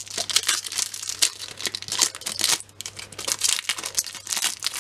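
Foil wrapper of a Match Attax trading-card pack crinkling and crackling as it is torn open by hand and the cards are pulled out, with a brief lull a little past halfway.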